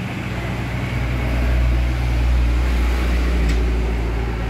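Steady low mechanical rumble with a droning hum, growing louder about a second in.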